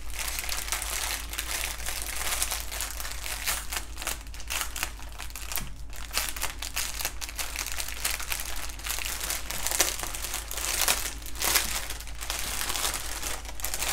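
Clear plastic packaging crinkling and rustling as hands unroll a long plastic sleeve of small zip bags filled with diamond-painting drills and handle the bags.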